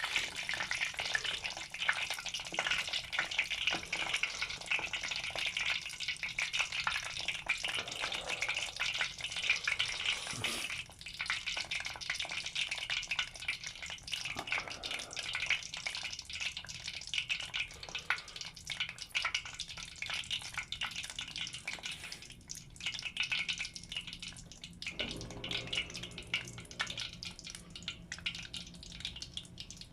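Croquettes and a pie deep-frying in hot oil in a tempura pot: a steady, dense crackling sizzle of oil bubbling around food just put in. A low hum comes in near the end.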